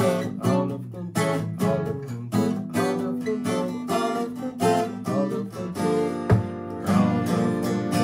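Tagima Kansas twelve-string acoustic guitar playing a rhythmic chord riff, with strokes about twice a second and the chords ringing between them.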